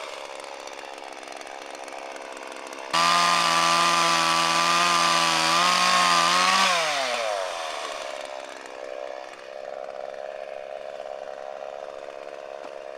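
Electric chainsaw cutting through a branch: the motor comes in suddenly at full speed about three seconds in, runs steadily for nearly four seconds, then winds down in pitch when the trigger is released.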